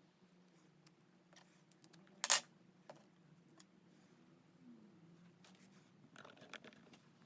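Small clicks and handling noises from hand-working heavy canvas, with one louder brief scrape about two seconds in and a few more short rustles near the end, over a faint steady low hum.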